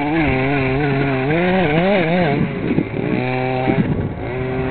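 Reely Carbon Fighter RC buggy's engine running under throttle, its pitch holding steady, then rising and falling repeatedly through the middle before settling again near the end.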